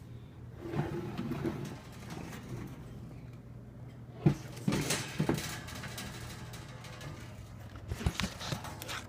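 Handling noise: rustling and a few sharp knocks, from about four seconds in and again near the end, over a steady low hum.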